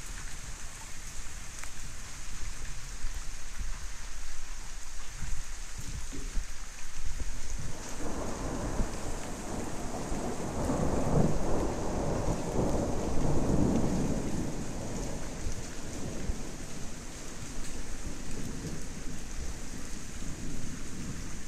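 Steady rain falling. A long roll of thunder begins about eight seconds in, builds to a peak a few seconds later and then rumbles away.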